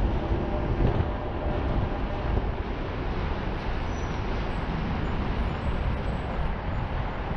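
Steady rushing of wind over the microphone and tyre noise from a bicycle being ridden along the road.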